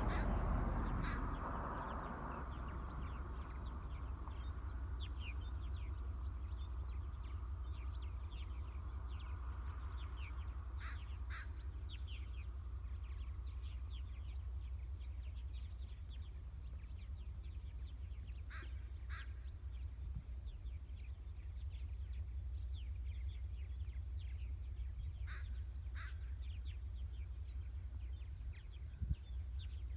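Shoreline ambience of birds calling over a steady low rumble. Faint short chirps run throughout, and sharper calls come in pairs about half a second apart, three times, several seconds apart.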